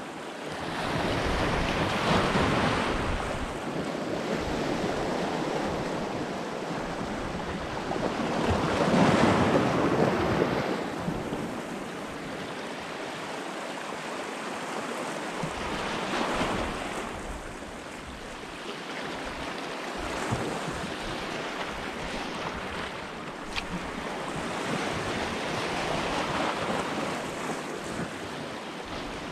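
Small sea waves washing in over a rocky shoreline, rising and falling in about five surges, the loudest about nine seconds in, with wind buffeting the microphone.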